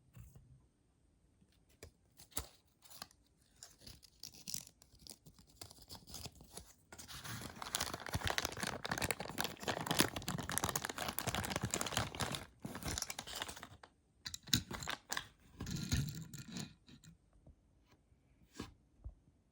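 Toy car packaging being opened and handled by hand: scattered small clicks and scrapes, then about six seconds of dense crinkling and tearing, then a few more rustles and taps near the end.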